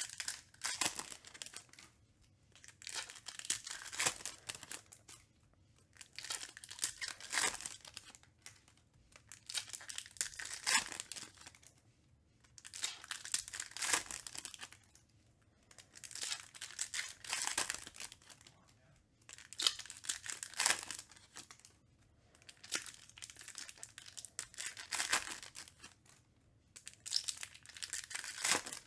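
Foil wrappers of Topps Chrome trading-card packs being torn open and crinkled by hand, pack after pack, in bursts about every three seconds.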